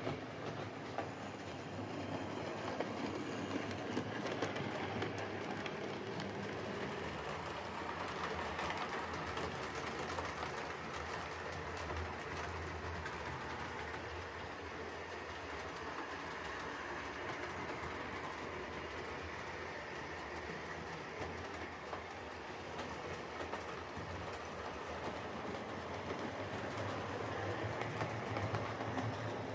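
Hornby M7 OO gauge tank locomotive running steadily on model railway track: a continuous motor whir with small clicks from the wheels on the rails. It is running well after a motor service and re-centring of its traction magnet.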